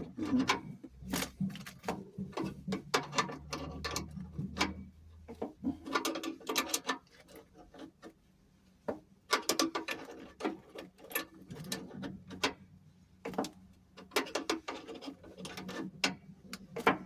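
Adjustable spanners clicking and knocking against a fuel-pipe compression fitting as it is screwed up and tightened, in irregular clusters of sharp metal clicks with a short lull a little before halfway.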